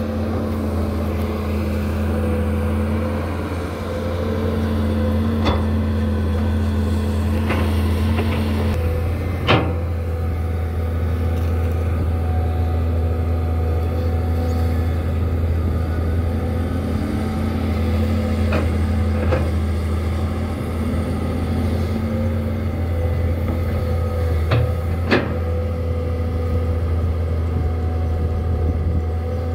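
Caterpillar 320C crawler excavator running steadily as it digs, its diesel engine holding a constant low hum with higher tones that rise and fall as the arm works. Several sharp metallic knocks from the bucket and arm cut through, the loudest about a third of the way in and again near the end.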